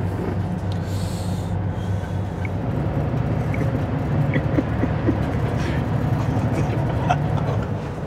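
Steady low rumble of a city bus's engine and running gear heard from inside the cabin, with a short hiss about a second in.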